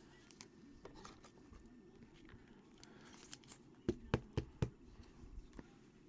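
Faint rustling and crinkling of plastic and foil trading-card packaging being handled, with four quick, sharp taps in a row about four seconds in.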